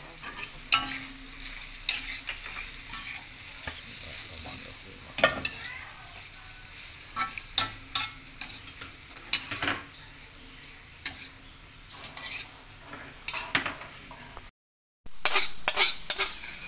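Metal spatula scraping and clinking against a wok as oyster mushrooms and egg are stir-fried, over a steady sizzle from the hot pan. After a brief break about three-quarters through, louder scraping and clatter as the food is scraped out of the wok onto a plate.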